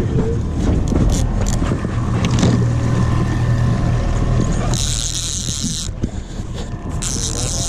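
Outboard motor running steadily at trolling speed, a low hum under everything. Clicks and knocks of rod handling come in the first few seconds, and there are two bursts of high hiss about five and seven seconds in.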